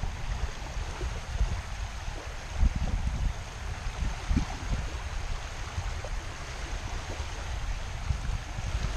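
Small waves lapping on a sandy lagoon shore, with wind rumbling unevenly on the microphone.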